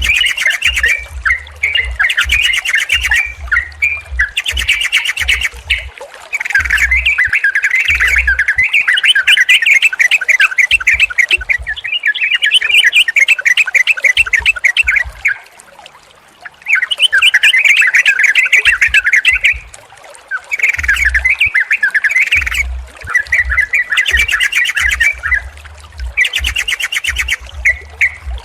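Yellow-vented bulbuls (trucukan) calling in bursts of rapid, bubbling chattering notes lasting a few seconds each, with a short lull about halfway through.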